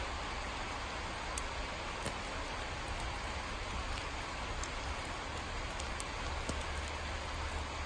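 Steady rain with scattered sharp droplet ticks, over a constant low rumble.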